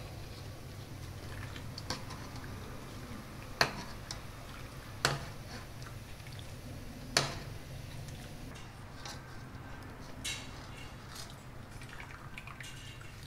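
Ladle and chopsticks knocking sharply against the rim of a metal pot three times, with braising liquid splashing and dripping as it is spooned over a whole duck, over a low steady hum.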